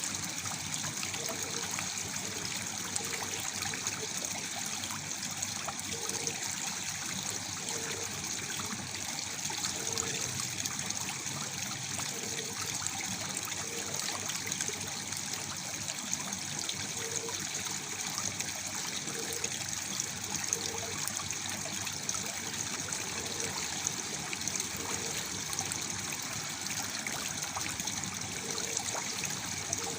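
Waterfall water pouring and splashing steadily, a continuous rush with fine trickling and, now and then, a brief low gurgle.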